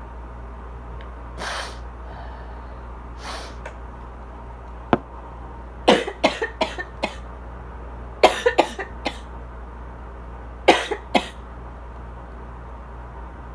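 Asthmatic coughing: two sharp breaths in, then three runs of short, rapid coughs a couple of seconds apart, the cough somewhat dry. An air conditioner hums steadily underneath.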